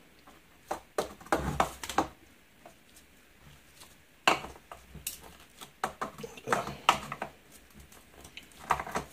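Metal pincers biting and prying at the rim of a sealed aluminium canister: irregular clusters of sharp metallic clicks and scrapes, the sharpest about four seconds in.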